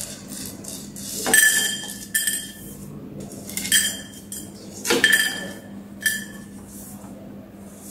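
Whole spices dropped one at a time into a small dry non-stick kadai, each landing with a sharp clink and a brief metallic ring from the pan, about five times.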